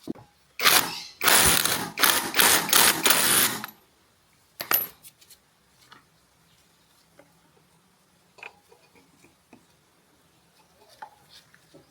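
Metal tools and small engine parts clattering and rattling for about three seconds, then a single clink and a few faint taps.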